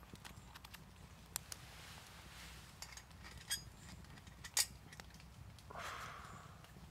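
Small wood fire in a wood gasifier stove crackling faintly: a few sparse sharp clicks, with a short soft rustle about six seconds in.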